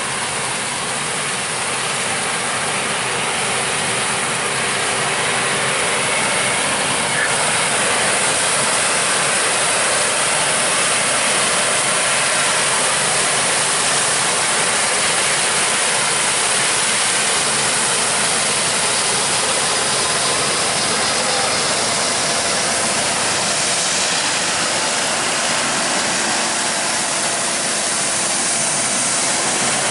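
Claas Lexion combine harvester working, a steady, dense engine and machine noise that grows slightly louder over the first few seconds.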